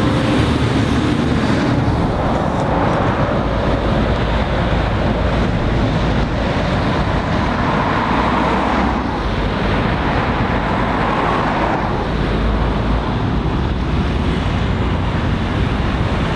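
Road traffic passing close by: a large farm tractor towing a high-sided trailer drones past at the start, then cars go by with tyre noise that swells and fades twice around the middle, over a steady traffic rumble.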